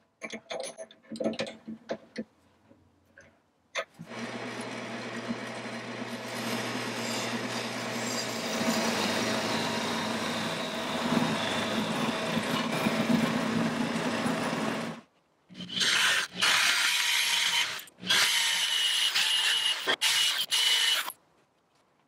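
A few short knocks from a walnut blank being handled and seated in a metal lathe chuck. Then a wood lathe runs for about eleven seconds with a hum while a turning chisel cuts the spinning walnut. After a brief gap, a cordless drill bores into the wood in several short, louder bursts with a high whine.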